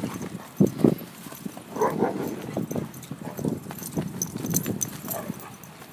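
Dogs playing on artificial turf: irregular taps, knocks and scuffles from their paws and a hard plastic ball.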